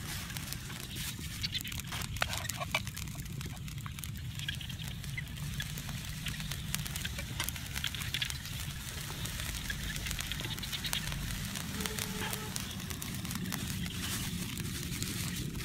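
Small twig fire crackling under a pan, with scattered sharp pops over a low steady rumble. Near the end a plastic bag crinkles as it is handled.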